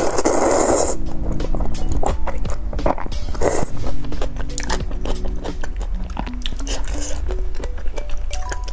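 Background music with a steady melody. Over it, a loud wet slurp of thick sauced noodles (jjajangmyeon) in the first second, then chewing with small mouth clicks and smacks.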